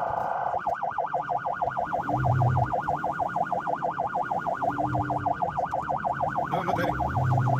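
Ambulance siren in yelp mode, its tone sweeping rapidly up and down several times a second, switching over from a faster warble about half a second in. Short low horn blasts sound about three times.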